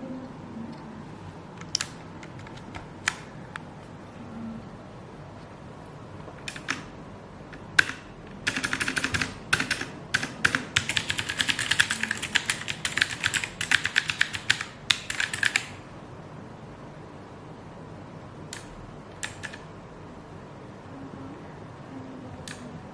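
Altec Lansing ALGK-8404 mechanical keyboard with blue switches being typed on, the keys clicking. A few single keystrokes come first, then about seven seconds of fast continuous typing from about a third of the way in, then a few more scattered key presses.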